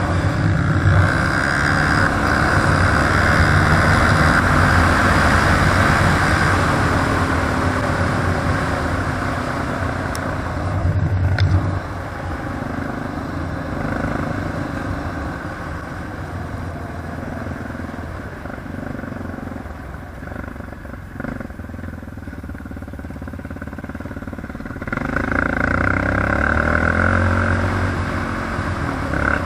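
ATV (quad bike) engine running under way, loud for about the first twelve seconds, easing off through the middle, and picking up again near the end.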